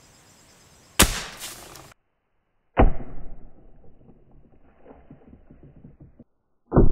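A .177 air rifle pellet bursts a water balloon with one sharp crack about a second in. The burst then comes twice more as slowed-down replays: sudden low, muffled hits that rumble away over several seconds, the second one near the end.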